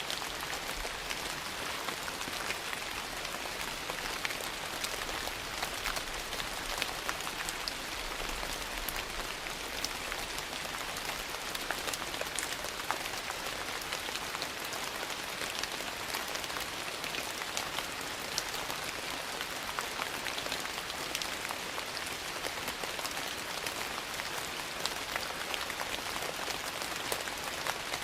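Steady rain, an even hiss sprinkled with many small sharp ticks and pops.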